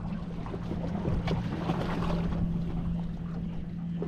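Steady low hum from the boat's machinery, with wind noise on the microphone, water slapping against the hull and a few light knocks.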